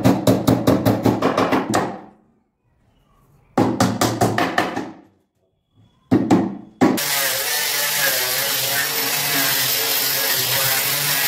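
Hammer striking a plywood drawer in quick taps, about six a second, in three short runs. About seven seconds in, an angle grinder with a sanding disc starts and runs steadily, sanding wood with a high whine.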